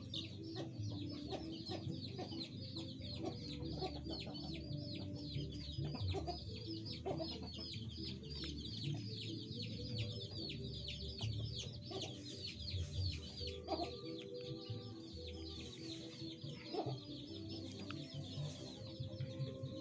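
Green junglefowl clucking with low, scattered clucks, over a constant fast high chirping in the background.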